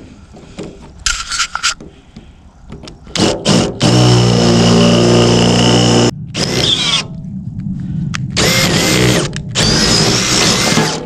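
Electric drill drilling out a car's locking gas cap, running in several bursts. The longest run lasts about two seconds, starting about four seconds in, and the later runs carry a high whine.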